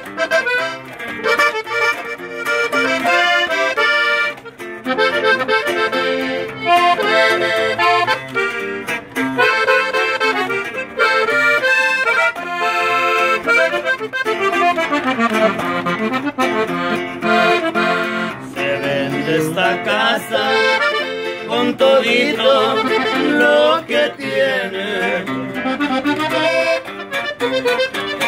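A Hohner diatonic button accordion plays a lively norteño ("fara fara") melody, with a bajo sexto strummed underneath for the rhythm. The music is instrumental, with no singing.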